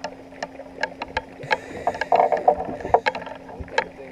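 A musky thrashing and splashing at the surface beside the boat, loudest in the middle, over a run of sharp irregular ticks from a fishing reel's drag as the fish pulls line.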